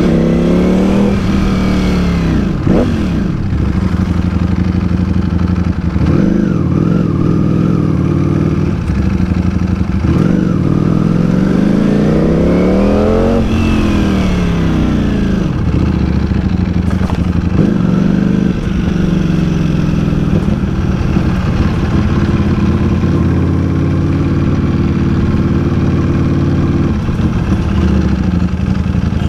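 Ducati Panigale V4 S's V4 engine running under the rider in second gear, mostly steady with a few brief throttle dips. Its revs climb in one long rise to a peak about 13 seconds in, then fall away as the bike slows.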